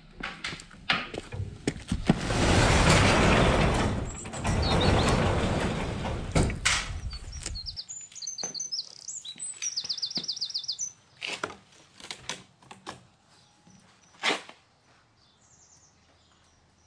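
A heavy door sliding in two long rumbling scrapes, with scattered knocks, followed by birds chirping in quick runs of short notes and a few more knocks.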